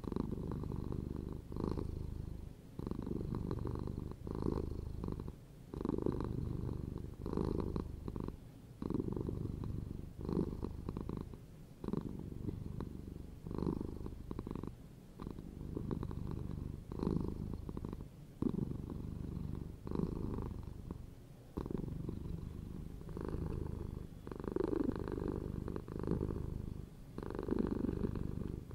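Domestic cat purring steadily, the low rumble swelling and easing in pulses about every one and a half seconds as the cat breathes in and out.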